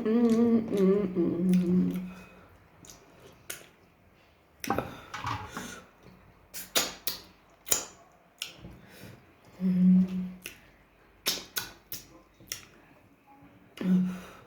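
Close-miked eating sounds: wet clicks, smacks and crackles of chewing, with short hummed 'mmm's of enjoyment at the start, about ten seconds in, and at the end.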